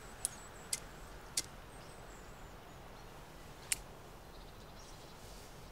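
A cigarette lighter being struck: four short, sharp clicks spread over about four seconds, the last one standing apart from the first three, over faint outdoor background hiss.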